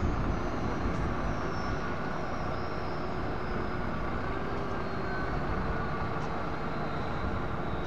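Tipper lorry and asphalt paver running steadily with diesel engine noise as the lorry's body is raised to tip asphalt into the paver. A faint high whine slowly falls in pitch.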